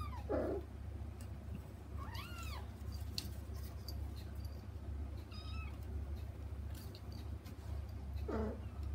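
A kitten mewing at a closed door, calling for its mother on the other side. Short, high-pitched mews come every two to three seconds, some rising then falling in pitch and some falling steeply, with a few faint taps between them.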